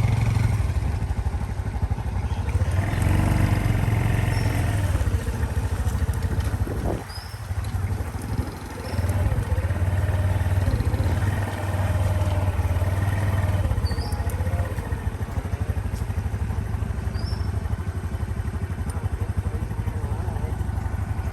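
Small motorcycle running on the road, its engine note rising and falling with the throttle over a steady low rumble and wind noise.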